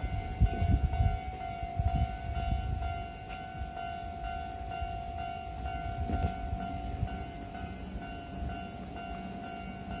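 Railway level-crossing warning bell ringing steadily with its repeating electronic tone, over the low rumble and wheel clatter of a passing electric commuter train that fades after the first few seconds.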